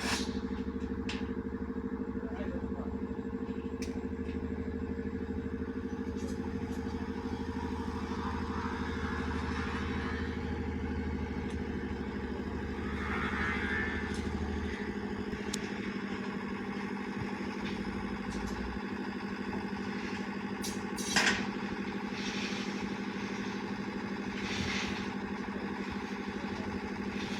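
Steady mechanical engine hum. A deeper rumble underneath stops about halfway through. Scattered light clicks and one sharp knock come about three-quarters of the way in.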